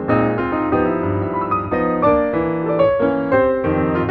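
Piano music playing a steady run of notes and chords.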